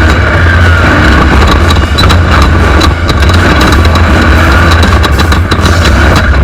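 Off-road race truck engine running hard at speed, loud and steady, with a heavy low rumble and constant road noise.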